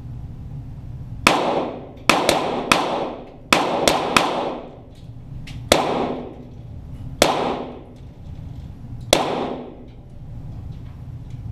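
.22 Walther GSP target pistols firing about ten shots in an uneven string, some in quick pairs, each crack echoing briefly around the indoor range.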